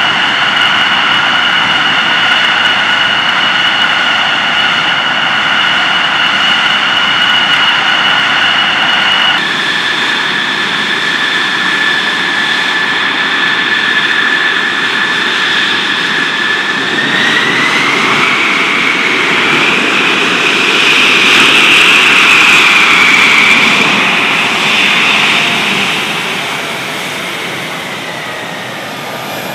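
F-16 Fighting Falcon's jet engine running on the ground with a steady high-pitched whine, which jumps to a different pitch about nine seconds in. Later the whine rises and grows louder as the jet powers up to taxi, then falls away again near the end.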